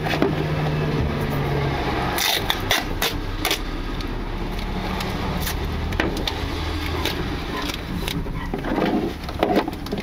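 Sound picked up by a microphone taped to the front subframe under the bonnet of a 2018 Nissan Leaf: a steady low hum with irregular sharp knocks and scrapes.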